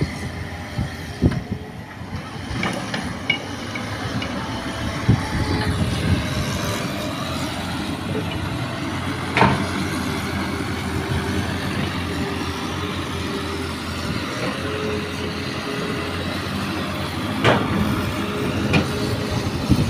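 Diesel engines of a light dump truck loaded with earth and an excavator running steadily as the truck moves off, with two sharp knocks, one about halfway through and one near the end.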